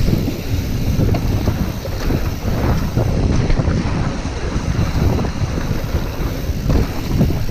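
Wind rushing over the microphone of a handlebar-mounted camera on a mountain bike riding fast downhill, with tyres rolling over a dirt trail and scattered knocks and rattles from the bike over bumps.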